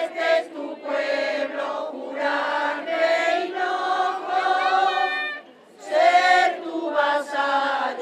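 A gathered crowd of women and men singing a hymn together, in long held notes, with a short break for breath about five and a half seconds in.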